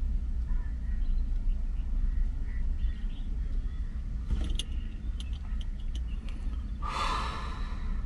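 Wind buffeting the microphone: a low rumble that rises and falls quickly. A few light clicks come just past the middle, and a short gust of hiss comes near the end.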